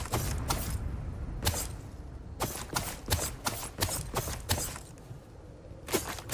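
Tactical knife being handled: a quick, irregular string of sharp metallic clicks and short scrapes, with a pause about five seconds in before more clicks.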